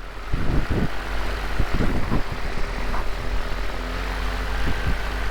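Small aircraft's engine running at low throttle while taxiing over rough ground: a steady engine hum with a few irregular knocks and thumps from the bumps.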